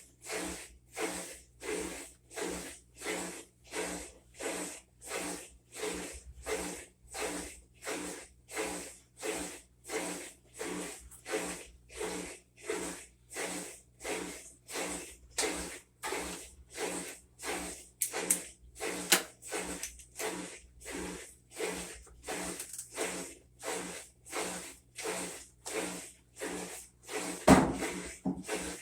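Whirlpool top-load washer agitating: regular swishing strokes of water and clothes, about one and a half a second, with a single louder thump near the end.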